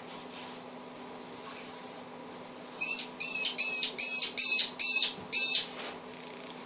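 A bird calling: a quick run of about eight short, harsh, high calls starting about three seconds in, then stopping.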